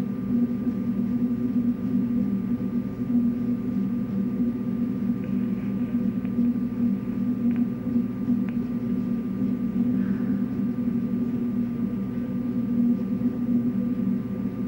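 Film projector running: a steady motor hum with a thin, high whine above it.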